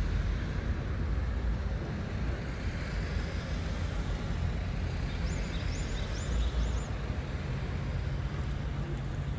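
Steady low outdoor rumble of background noise, with a quick run of about four short, high chirps about five to seven seconds in.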